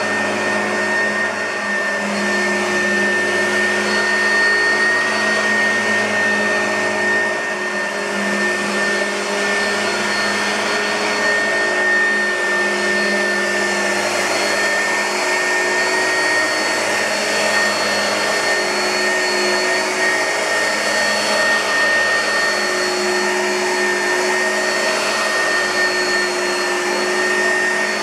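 2006 Oreck XL2 bagged upright vacuum cleaner running steadily: a constant motor-and-fan rush with a steady high whine over it.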